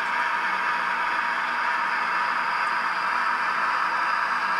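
Acme model of an FS E444R electric locomotive running along the track, its digital sound decoder giving a steady, even hiss-like running sound with no change in pitch.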